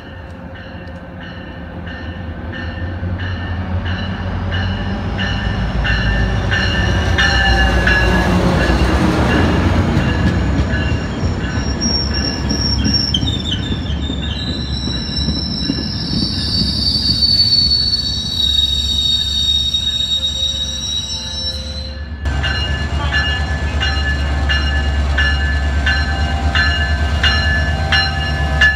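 Metrolink commuter train running into the station with its bilevel cab car leading: a rumble that builds as it approaches, then high wheel squeal for several seconds as the cars pass. About three-quarters of the way through the squeal cuts off and the diesel locomotive at the rear comes past with a steady low engine drone and regular clicks of wheels over the rail joints.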